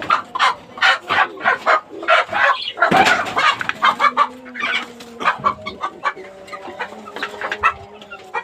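Chickens clucking: a quick run of short, sharp clucks, a louder call about three seconds in, then quieter clucks over a drawn-out, even-pitched call.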